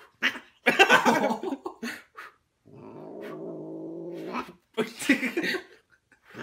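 Domestic cat yowling and growling while held on its back: loud yowls about a second in and again near five seconds, with a long, low, steady growl between them.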